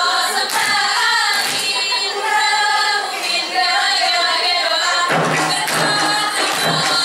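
A group of young girls singing a chant in unison, with a few sharp claps. About five seconds in, frame drums and fast rhythmic percussion come in underneath.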